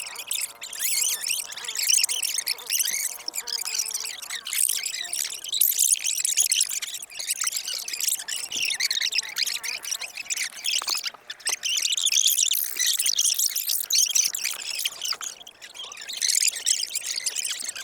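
Close-up crunching and crackling of seafood being eaten, shells cracked and chewed right at the microphone, in a dense, irregular run with brief dips around nine, eleven and fifteen seconds in.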